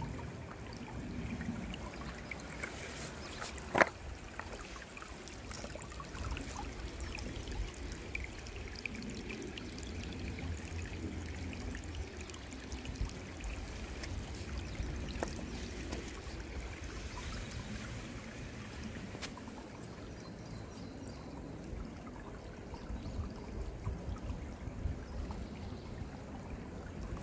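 Shallow, rocky stream trickling over stones, a steady water sound with a low rumble underneath. A single sharp click comes about four seconds in.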